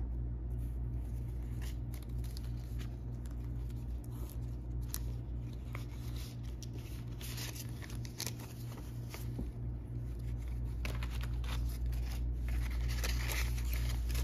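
Paper banknotes rustling and flicking as a stack of bills is handled and pressed into a plastic binder pocket, in scattered short crackles that come thicker around the middle and near the end, over a steady low hum.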